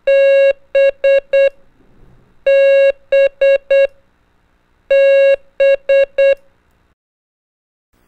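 Morse code letter B (dah-di-di-dit) keyed three times as a steady beep tone: each group is one long tone followed by three short ones, about two and a half seconds apart.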